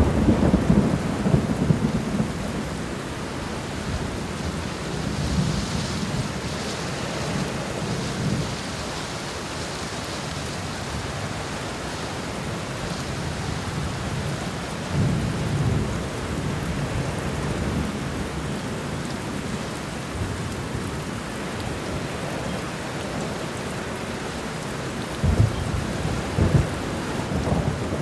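Thunderstorm: steady heavy rain hissing, with low thunder rolling in and out several times. Two sharper claps come near the end, and the thunder swells again as it closes.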